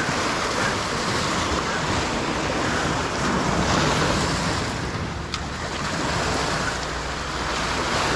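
Sea surf washing against a rocky seawall, with wind buffeting the microphone; a single brief click about five seconds in.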